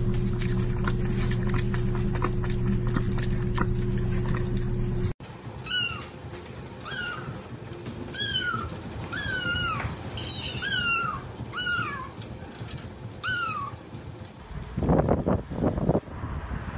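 A cat meowing repeatedly: about eight short meows, each falling in pitch, roughly a second apart. For the first five seconds a steady hum with light clicks comes before them, cut off abruptly.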